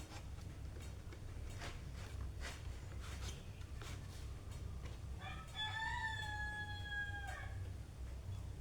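A rooster crowing once in the distance, a single drawn-out call of about two seconds, rising at the start and then held. Faint scattered taps and a low steady hum run underneath.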